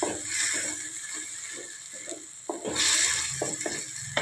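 Spatula stirring soya chunks in a wet masala in a metal kadhai: scraping strokes against the pan over a sizzling hiss that swells loudest a little under three seconds in.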